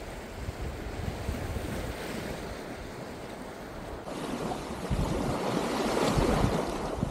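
Sea surf washing on a sandy shore under a steady wind. About four seconds in, it switches abruptly to a louder rush of wind buffeting the microphone on a moving bicycle.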